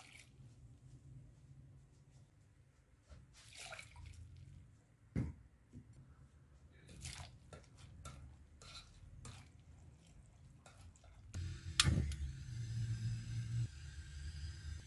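Chopped cabbage in water being stirred in a pot with a silicone whisk: scattered soft scrapes and wet squishes. About twelve seconds in, a sharp click is followed by a steady hiss.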